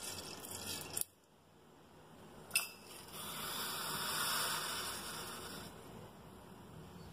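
Mustard seeds sizzling in hot oil, with one sharp click about two and a half seconds in; the sizzle swells and then fades.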